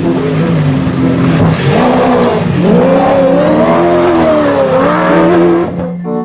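Racing car engine revving up and down over a loud rushing noise, stopping abruptly near the end.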